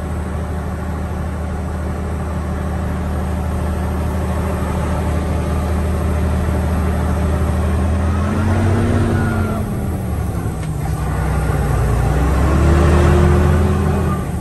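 Old Scania truck's diesel engine pulling up a grade, heard from inside the cab. The note holds steady at first, then rises and falls twice in the second half as the revs change.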